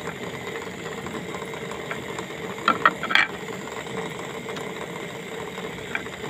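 A steady mechanical hum runs throughout, and a few sharp knocks come close together about three seconds in.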